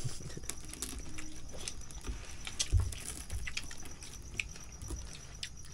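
Small scattered clicks and smacks of people eating grilled fish and rice with their hands, over a steady high insect trill, with one dull thump near the middle.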